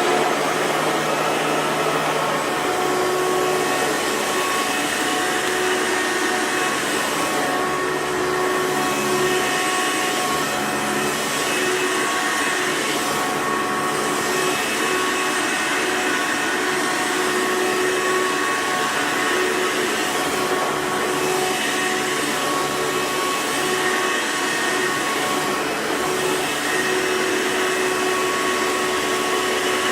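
Hoover Runabout vacuum cleaner running steadily while vacuuming carpet, its motor noise carrying a faint steady whistle that the owner takes for an air leak.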